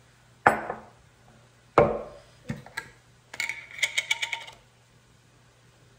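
Glass jar of jalapeño slices being opened and handled: two sharp knocks with a brief ring, about half a second and two seconds in, then a quick run of small glassy clinks and clicks from about three to four and a half seconds in.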